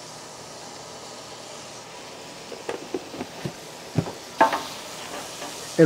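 Oil, chicken drippings and flour sizzling gently in a roasting pan over a low gas flame as a roux begins to cook. A few light clicks and taps come in partway through, the loudest about four and a half seconds in, as the plastic lid is pressed back onto the flour container.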